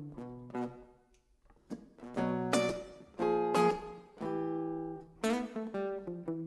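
Acoustic guitar playing picked notes and strummed chords, with a brief pause about a second in.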